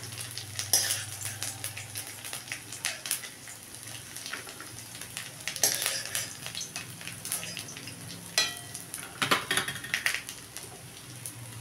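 Shredded coconut frying in oil in a metal kadai with a light, steady sizzle. A steel spoon scrapes and clinks against the pan several times as the fried coconut is scooped out.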